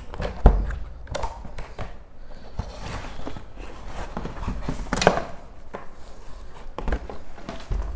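Packaging being handled as a motorcycle helmet is unpacked from its carrying bag: scattered knocks and rustling, with a sharper knock about half a second in and another about five seconds in.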